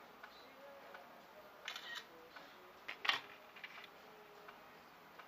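Smartphone camera shutter sound as a photo is taken: a sharp double click about three seconds in.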